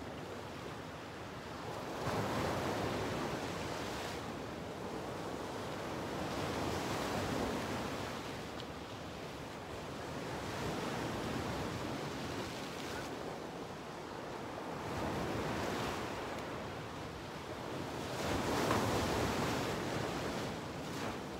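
Ocean surf breaking on shore rocks, swelling and easing in surges every three to five seconds.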